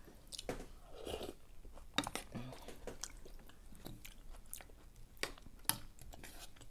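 Quiet close-up chewing of mushroom and daikon radish noodle soup, with wet mouth noises and scattered sharp clicks as a soup spoon is stirred in the bowl.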